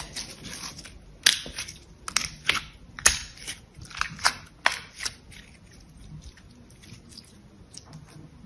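Soft translucent soap squeezed and kneaded by hand, giving sharp sticky crackles and squelches, a string of them from about a second in to halfway through, then only faint small ticks of handling.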